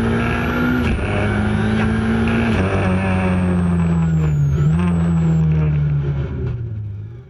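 Ford Fiesta R2 rally car's 1.6-litre four-cylinder engine heard from inside the cabin, running at fairly steady revs with small rises and dips in pitch and brief drops about one and two and a half seconds in. It fades out near the end.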